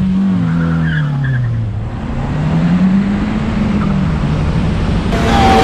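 Hyundai i20N's turbocharged four-cylinder engine launching from a standstill: the revs sag as the car pulls away, with a short tyre squeal about a second in, then climb again and drop at an upshift about four seconds in.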